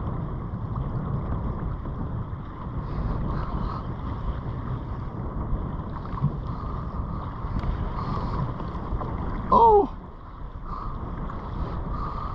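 Wind buffeting the microphone over choppy open water around a fishing kayak, a steady rumbling hiss. About three-quarters of the way through comes one brief, loud pitched sound that slides down in pitch.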